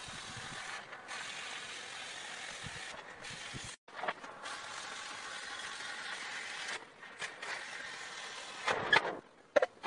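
Oxy-fuel cutting torch hissing steadily as its oxygen jet cuts through steel plate, with a brief break a little before four seconds in. The hiss stops near the end, followed by a few sharp metal clanks.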